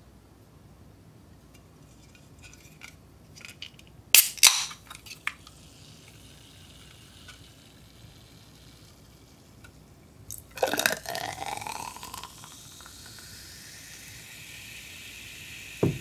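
Aluminium can of Coca-Cola Energy opened with two sharp cracks of the pull tab about four seconds in. About ten seconds in the carbonated drink is poured into a bottle made of ice, splashing with a rising tone and then settling into a steady fizzing hiss. There is a short knock near the end.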